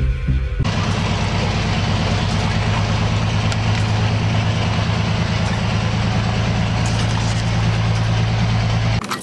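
A heavy military vehicle engine, like a tank's, idling steadily at a constant low pitch. It starts suddenly under a second in, as a short tail of music ends, and cuts off just before the end.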